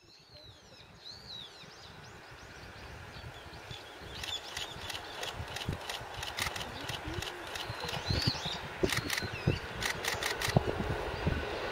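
Keikyu electric commuter train approaching, its rumble growing steadily louder, with irregular sharp clicks in the second half. Birds chirp high above it, mostly near the start.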